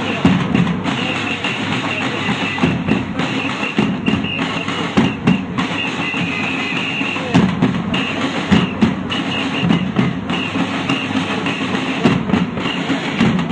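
Drums and percussion beaten in an irregular rhythm over the steady noise of a crowd.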